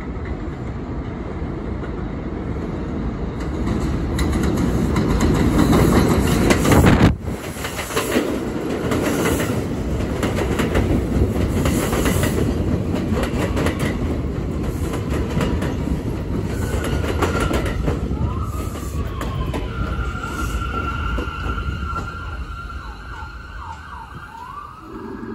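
R179 subway train on elevated steel track, its wheels rumbling and clattering louder as it approaches, breaking off suddenly about seven seconds in. It then rolls along the platform slowing down, with high squeals and whines rising and falling over the last several seconds as it brakes to a stop.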